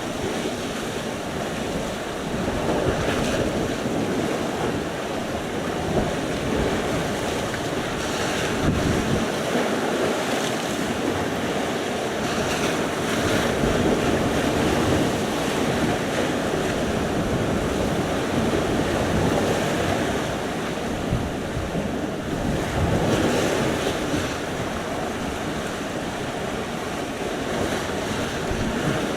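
Sea surf: waves breaking and washing on the shore in a continuous rushing wash that swells every few seconds, with wind buffeting the microphone.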